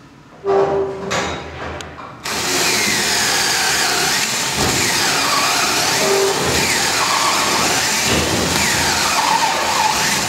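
Cordless drill with an auger bit boring into timber for a lock mortice. A short burst of the motor comes about half a second in; then from about two seconds in it runs continuously as the bit cuts through the wood, its pitch rising and falling as the load changes.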